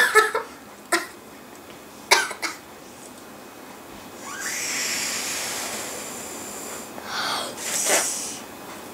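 A child blowing hard through a straw pushed into a ball of slime: a few short, sharp puffs, then one long hissing blow of two to three seconds, and another blow near the end.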